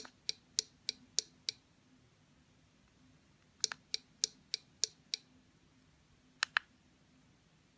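RC jet turbine fuel solenoid valve clicking open and shut during its test cycle. Two runs of six sharp clicks come at about three a second with a pause between them, and two quick clicks follow near the end.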